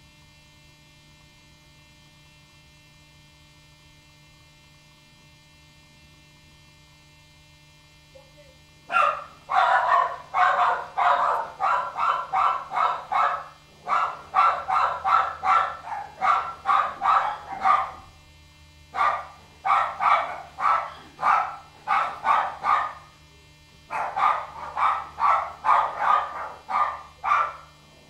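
A steady electrical hum, then from about nine seconds in a dog barking rapidly, two or three barks a second, in runs of four to five seconds with short pauses between them.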